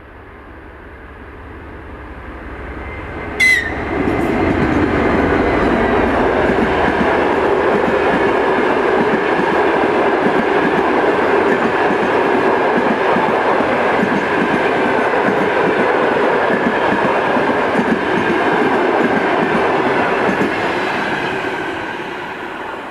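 TEP70K diesel passenger locomotive approaching and passing at speed, with a short, sharp high-pitched sound as it reaches the platform about three and a half seconds in. Its train of passenger coaches then rushes by, wheels rumbling and clattering on the rails, and fades as the last coach passes near the end.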